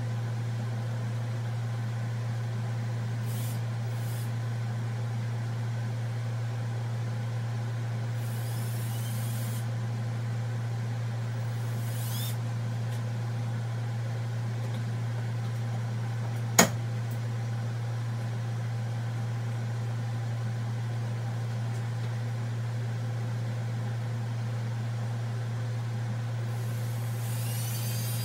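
Steady low machine hum in a workshop, with a few short hisses and a single sharp click a little past the middle. Near the end a drill press begins drilling into the plastic fitting, with a rising high whine.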